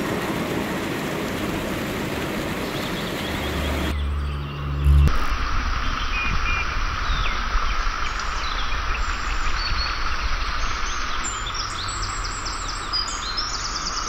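Water rushing over a rocky stream cascade, then from about five seconds in, forest ambience: birds chirping and insects trilling over a steady stream. There is a brief low hum at the change.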